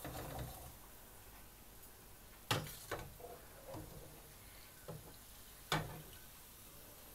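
A few sharp clinks of a utensil knocking against a pan, two louder ones about two and a half and six seconds in, each followed by a softer one, as fried gulab jamuns are lifted from the oil and put into sugar syrup.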